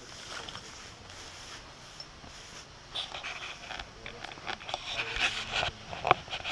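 Footsteps and rustling close to the microphone as someone walks over forest ground, turning busier and louder about halfway through.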